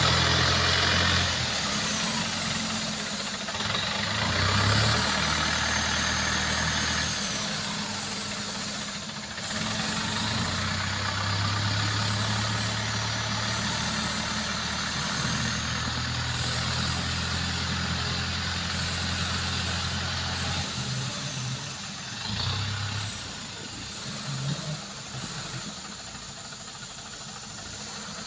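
A farm tractor's diesel engine running under load as it tows a loaded truck up a muddy slope, its note shifting in pitch now and then and fading as it pulls away.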